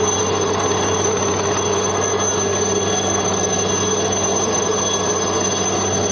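Chetak (Alouette III) helicopter hovering low, its rotor and turbine making a loud, steady drone with a high whine.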